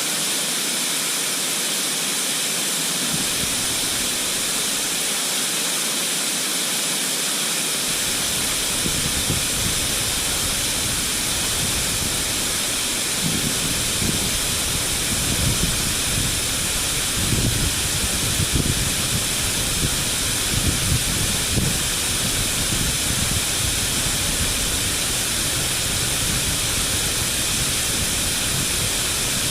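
Waterfall rushing steadily. An uneven low rumble joins about eight seconds in and swells and fades in gusts.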